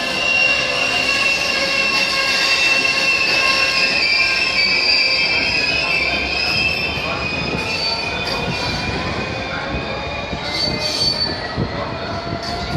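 Freight hopper wagons' steel wheels squealing on curved track as the train rolls slowly past, several steady high-pitched tones drifting slightly in pitch over the rumble of the wagons. A few short clicks come in over the last few seconds.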